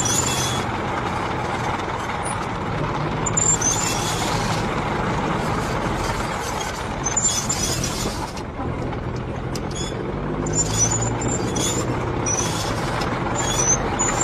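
Old military tank moving: a steady low engine drone under the clanking and squealing of its tracks, which come in short high-pitched bursts every second or few.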